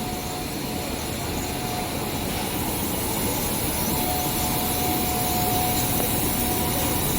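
Steady machinery noise from a running rubber hose production line, with a faint steady whine that comes and goes.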